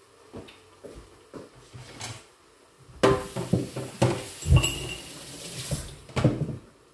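Dishes and kitchen utensils clattering and clinking as they are handled. A few light knocks come first, then a busy run of clatter from about three seconds in until near the end, with a brief ringing clink in the middle.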